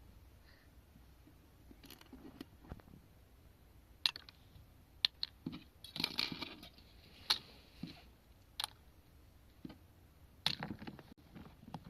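Scattered small clicks and taps with a brief scrape about six seconds in: small plastic parts and tools being handled while a toy phone is worked on.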